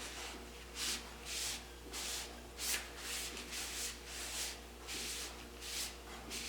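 Repeated rubbing strokes, about two a second, each a short hiss, over a faint steady hum.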